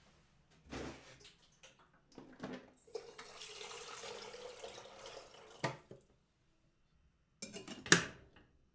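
Water poured into a metal kettle, a steady stream with a ringing tone for about three seconds. Metallic knocks and clatter of the kettle come before and after, the loudest a clank near the end.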